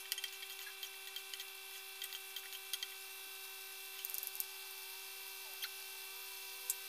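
Steady electrical hum with scattered light clicks and taps of a spatula against a wok and a spoon against a sugar container, a small cluster of them about four seconds in.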